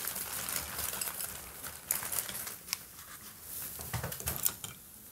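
Paintbrush working paint on a palette: irregular soft scrapes and small clicks.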